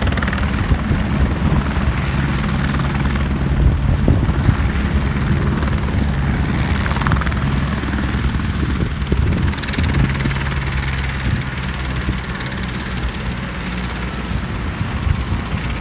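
Medical helicopter running on the helipad just after landing: a steady rotor beat with a faint high turbine whine, getting gradually quieter.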